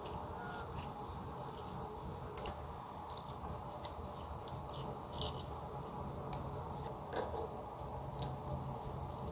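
Water with shredded ginger bubbling in an aluminium pan on a portable gas stove: a steady low burner hum under scattered small pops and drips as a lime is squeezed over the pan with a spoon.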